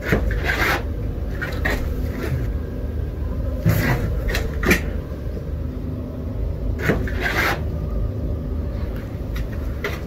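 Someone moving about in an attic: scraping and rubbing on wood with a few sharp knocks, over a steady low rumble.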